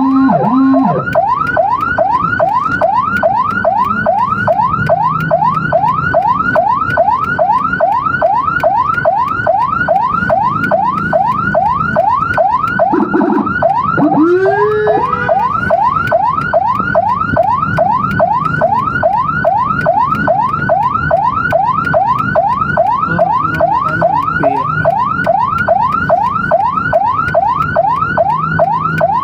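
Emergency-vehicle electronic siren in a fast yelp: quick rising sweeps, about three a second, with a vehicle engine running underneath. About halfway through, a separate slower rising whoop sounds briefly.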